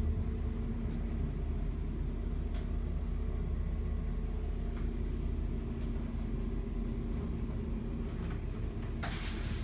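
Steady low machine hum holding one constant pitch, with a few faint clicks; about nine seconds in, a loud rushing hiss joins it.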